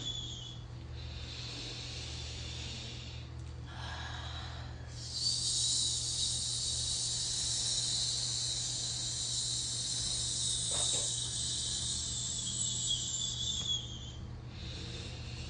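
A person breathes in, then holds a long, steady 'sss' hiss for about nine seconds as a breath-control exercise, and breathes in again near the end.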